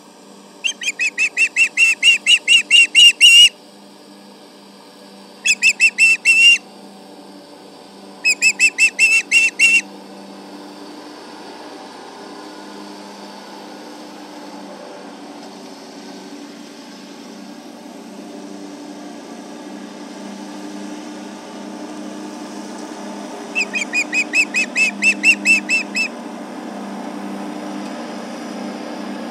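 Osprey alarm calls: four bouts of rapid, whistled chirps, about five a second, near the start, twice more in the first ten seconds and again about two-thirds of the way through, directed at a nearby tractor. Under them a tractor engine runs steadily, growing louder toward the end.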